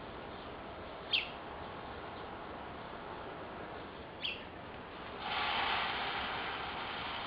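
Two short, falling bird chirps, about a second in and again about four seconds in, over a steady background hiss. Just past five seconds a louder rushing noise swells up and holds.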